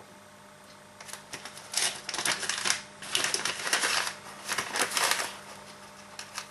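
Paper packet of baking soda crinkling and rustling in the hand as it is opened and scooped from. It comes in several irregular bursts of crackling, starting about a second in and dying down near the end.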